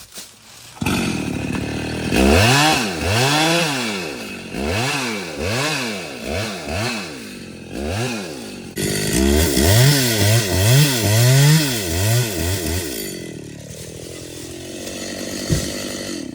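Chainsaw engine revved up and down repeatedly, its pitch rising and falling every second or so, then dropping back to a lower, steadier running note near the end.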